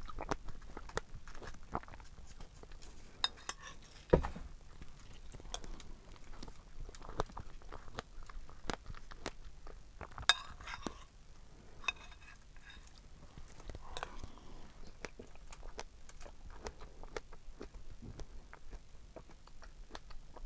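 Close-miked eating: soft chewing of strawberries and cream, with scattered clinks of cutlery against a dish. Two louder clinks come about four and ten seconds in.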